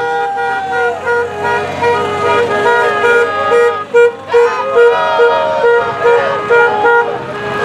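Car horns honking in celebration as a caravan of vehicles drives past. One horn beeps in a steady rhythm about twice a second over other horns held longer, with wavering shouts or noisemakers on top.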